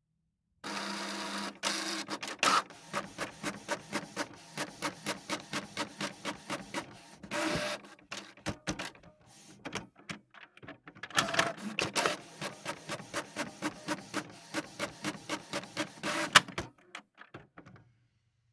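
A printer printing, with its mechanism running in regular strokes about three a second. There are two long runs of strokes with a stretch of fainter, irregular clicking between them, and a sharp click near the end before it winds down.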